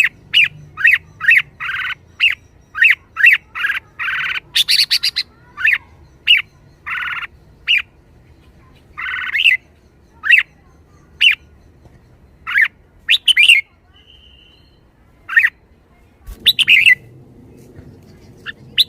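Red-whiskered bulbul calling in a rapid string of short, sharp chirps with a few longer notes mixed in, busiest in the first half and thinning out later.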